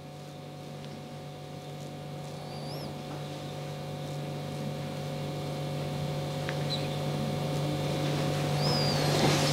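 A steady low mechanical hum that slowly grows louder, with a few faint high chirps over it.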